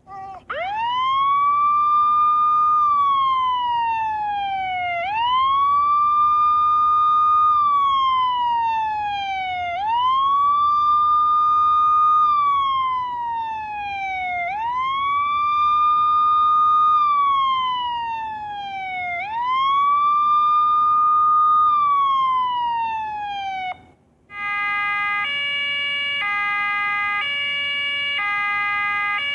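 Siren sound effect wailing in slow cycles, five times over: each rises quickly, holds and then slides down. After a brief break near the end it switches to an alternating two-tone pattern.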